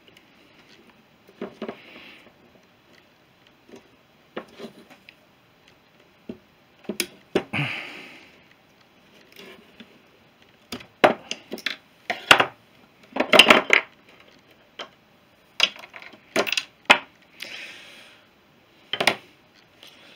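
Metal clicks and clanks as the return springs are levered off a BSA B31's front brake shoes with pliers and the shoes and parts are handled on the brake plate and set down on a workbench. The sharpest clanks come in a quick cluster a little past halfway.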